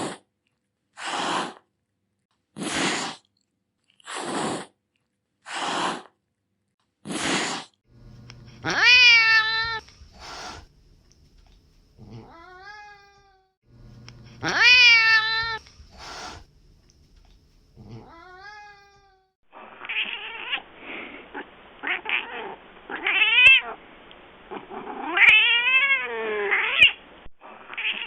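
Domestic cat hissing in six short bursts about a second and a half apart. Then long, drawn-out yowls that rise and fall in pitch. In the last third, a duller recording of a cat growling and yowling in wavering calls.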